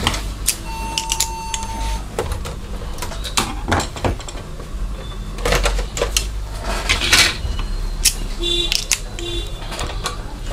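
Irregular clicks and knocks of hard plastic and metal as an InFocus DLP projector is taken apart by hand: its lamp-compartment cover is lifted off and a screwdriver works at the lamp's screws. Under it runs a steady low hum.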